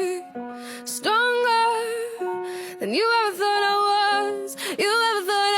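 Background music: a song with a high voice that swoops up in pitch about once a second over held accompanying notes.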